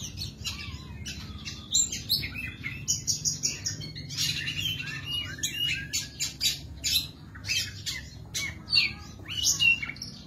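Oriental magpie-robin (kacer) in full song: a fast, varied, unbroken stream of sharp whistles and chattering notes, with many loud, clipped accents.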